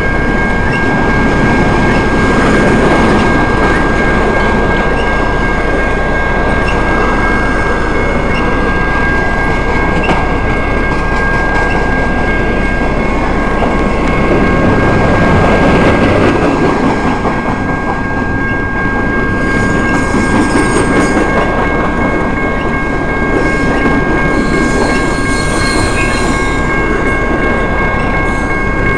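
Freight train's well cars and gondolas rolling past, a steady rumble with clacking of wheels over the rail joints. Steady high tones sound through it the whole time.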